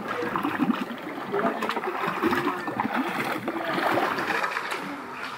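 A shovel scooping and splashing through shallow muddy floodwater.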